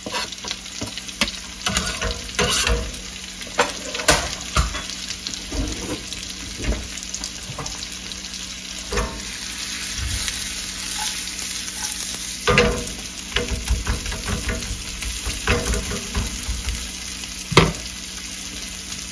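Onion and garlic frying in butter in a nonstick pan over a gas flame, with a steady sizzle. Every so often the pan knocks and scrapes as it is shaken and stirred.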